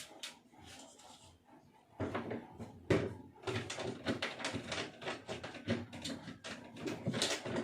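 Irregular clicks, knocks and rustling from a light fixture being handled and fitted to a ceiling. The sounds start about two seconds in.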